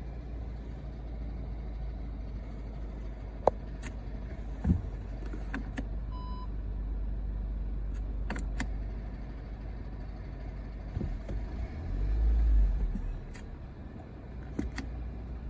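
Car with a DSG gearbox running with a steady low drone and scattered sharp clicks and knocks, a noise the owner suspects comes from the DSG or the flywheel. A short beep sounds about six seconds in, and the low drone swells louder around twelve seconds in.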